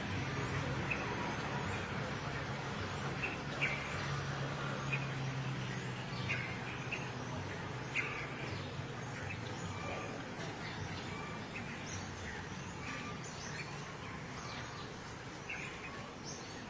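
Birds chirping: scattered short, high chirps over steady outdoor background noise, with a low hum in the first few seconds.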